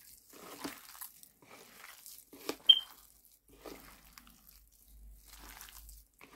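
A hand squeezing and kneading a soft mashed-potato croquette mixture in a bowl: a string of faint squishes and crunches, roughly one or two a second, with one sharper click a little under three seconds in.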